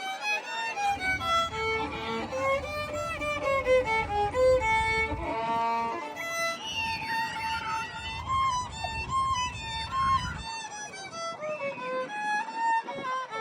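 Violin music playing a melody of held notes, with a low rumble underneath that stops about ten seconds in.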